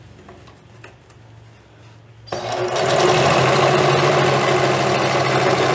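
Singer Facilita domestic sewing machine stitching elastic onto a fabric waistband. It starts abruptly about two seconds in after a faint hum, runs steadily at speed, and stops near the end.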